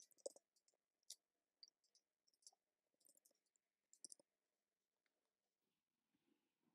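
Faint, scattered keystroke clicks on a computer keyboard as a name is typed, stopping about four seconds in.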